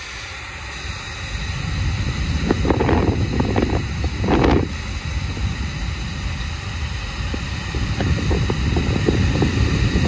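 Hairdryer blowing, its air stream buffeting the microphone: a steady rush with a low rumble that swells and dips, with a couple of louder surges in the first half.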